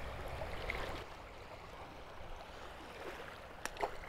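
Small waves lapping at the shore, then a short splash near the end as a bluegill is tossed back into the shallow water.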